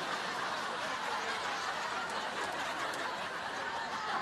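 Studio audience laughing, a dense, steady wash of crowd laughter.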